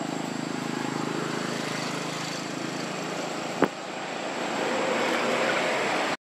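An engine running steadily in the background, swelling louder towards the end, with one sharp click about three and a half seconds in. The sound cuts off suddenly just before the end.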